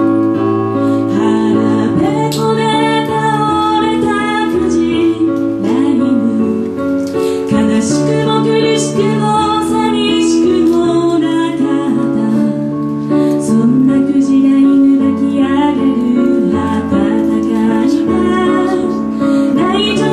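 A woman singing in Japanese, accompanying herself on an electronic keyboard: held chords under her vocal melody.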